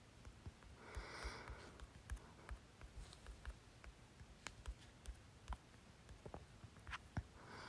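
Faint breathing of a person with hiccups, with one breath about a second in and another near the end. Scattered soft clicks fall between them.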